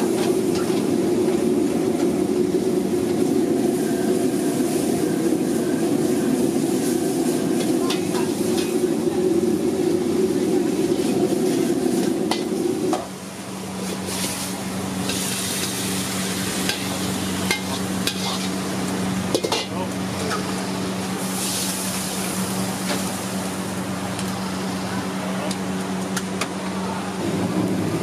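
Wok stir-frying over a high gas flame: a steady loud rush of burner and cooking under the ladle working the wok. About halfway through the sound drops to a lower steady hum, with bursts of sizzling and the clink and scrape of a steel ladle against the wok.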